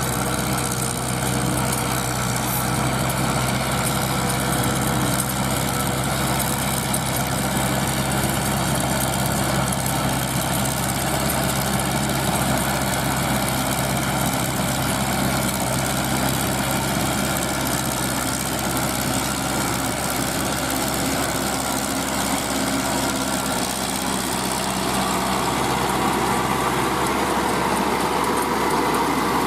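Landini tractor's Perkins 4.1-litre four-cylinder diesel engine running steadily under load while pulling a rotary tiller through dry soil.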